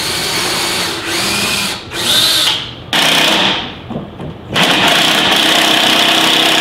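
Cordless drill boring into a cedar frame in about four runs: a short burst around two seconds in speeds up, and the longest, loudest run starts about four and a half seconds in.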